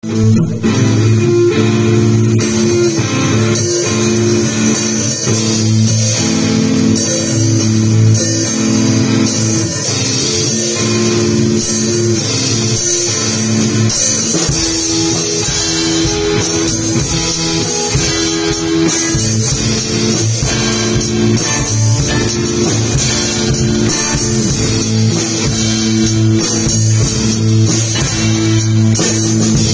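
Live rock band improvising a jam: electric guitars playing a repeating riff over a drum kit. The low end fills out about halfway through.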